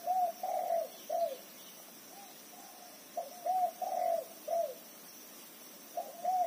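A dove cooing: short phrases of three or four arched coos, repeated about every three seconds.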